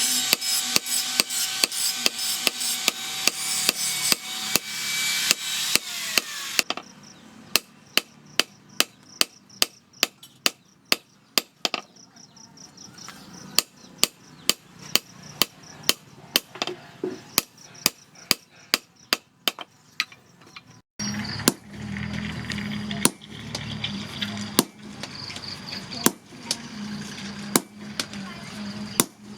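Hand hammer striking steel on an anvil in a steady rhythm, about two blows a second, while forging a knife blank. For the first few seconds the blows sit in a loud hiss, and about two-thirds of the way in a steady hum starts under them.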